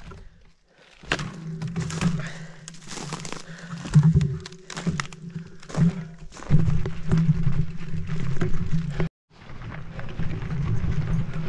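Marin Mount Vision mountain bike being lifted and pushed over fallen trees: irregular knocks, thunks and clatter of the bike against logs and dead branches. About nine seconds in, this gives way to steady rolling noise as riding resumes on the rocky trail.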